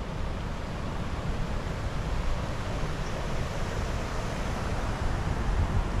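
Steady rush of flowing river water, with wind buffeting the microphone in a low, uneven rumble.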